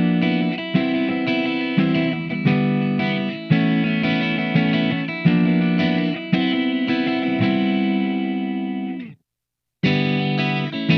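SLX Raven Modern Pro 24 HH electric guitar with Seymour Duncan humbuckers, played through an amplifier: a run of picked chords and notes, each attacked sharply and left to ring. The sound cuts off abruptly about nine seconds in, and after half a second of silence the playing starts again.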